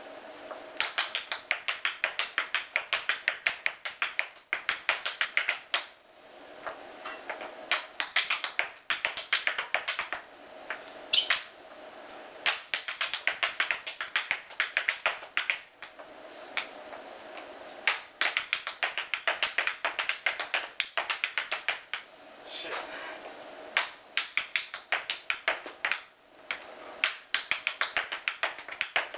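Tap-dance steps: hard-soled dance shoes striking a wooden board in fast runs of rapid clicks, each run a couple of seconds long, broken by short pauses.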